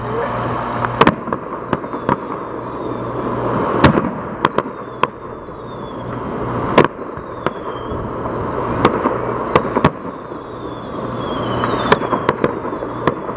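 Distant fireworks going off: a scatter of sharp bangs and pops at irregular intervals, some in quick succession, over a steady background rumble.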